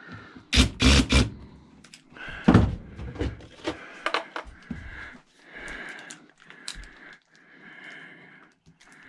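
Hand tools knocking and clanking on the parts of a salt chlorine generator being taken apart, with several loud knocks in the first three seconds, then lighter clicks and scraping.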